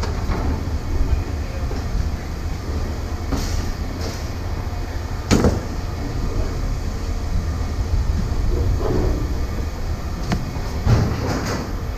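Steady low rumble of heavy machinery at a scrap yard, with a few sharp metal knocks from scrap motors being handled, the loudest about five seconds in and another near the end.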